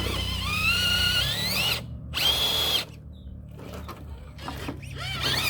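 Electric drive motor and gears of an RC scale crawler truck whining under throttle, the pitch climbing for over a second as it speeds up, then a second short steady burst of whine just after 2 s in before it lets off.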